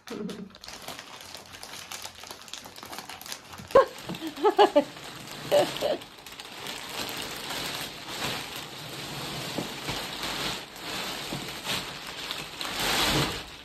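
Clear plastic wrapping crackling and rustling around a roll-packed mattress as it unrolls and expands. A few short pitched sounds come about four to six seconds in, and the crackle swells near the end.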